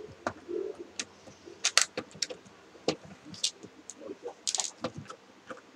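A plastic power strip and tools being handled on a table: irregular clicks and knocks, with a brief jangling rattle about four and a half seconds in.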